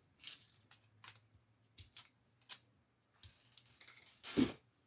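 Light, scattered clicks and taps of thick cardboard die-cut pieces being picked up and set down on a tabletop, with one louder, brief rustle a little past four seconds.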